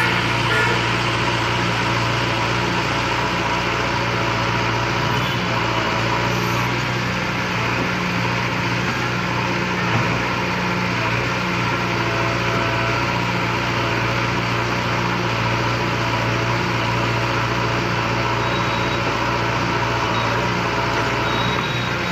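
Diesel engine of a JCB 3DX backhoe loader running steadily at a constant speed while the backhoe works.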